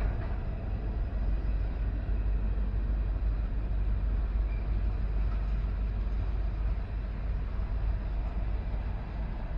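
Steady low rumble of a CN freight train's diesel locomotives as the northbound manifest rolls up to stop on the siding.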